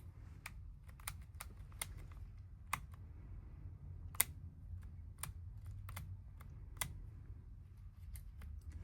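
Light, sharp clicks and taps, about a dozen spread unevenly, from the magnetic breakaway USB-C plug being handled on the camera, over a low steady hum.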